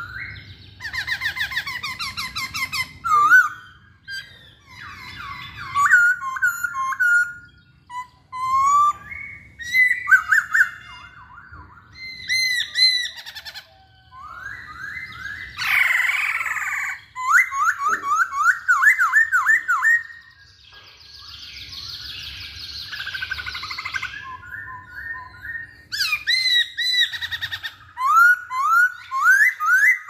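Caged masked laughingthrush (poksay Hongkong) singing: loud, varied whistled phrases of quick rising notes, broken by short pauses, with a harsher rasping stretch about two-thirds of the way through.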